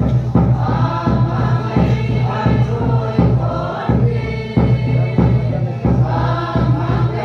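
A group of voices singing a hymn together, held notes over a steady beat about twice a second.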